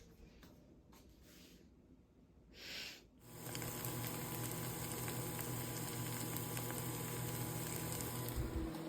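Running water, starting about three seconds in as a steady rushing hiss with a low hum beneath it, after a few faint rustles.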